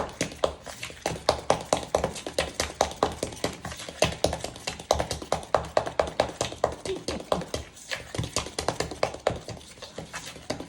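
Hand-beating a thick buttermilk batter in a bowl: a utensil clacks against the bowl in a quick, steady rhythm of about three strokes a second.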